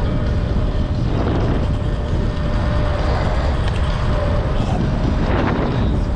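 Wind buffeting the microphone while riding a Sur-Ron X electric dirt bike, with a thin, steady whine from its electric motor.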